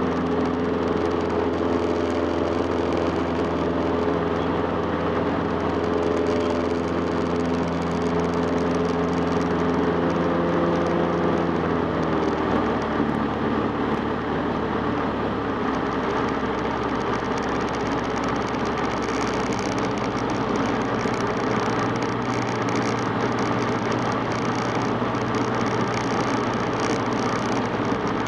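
Cessna 150's four-cylinder piston engine and propeller running steadily in flight over a constant rush of wind. About twelve seconds in, the engine note drops lower as power is eased back.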